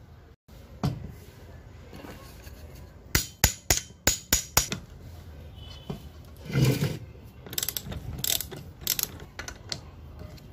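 Socket ratchet wrench clicking in short runs while undoing a nut on a rusty Lambretta scooter engine's chain-case sprocket, with knocks and clinks of metal parts being handled.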